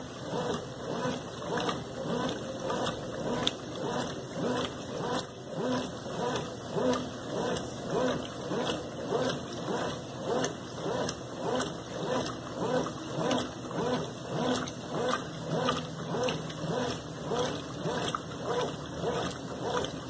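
Consul Maré CWL10 top-loading washing machine agitating: the central agitator churns back and forth through the wash water and clothes, sloshing in an even rhythm of about two swishes a second.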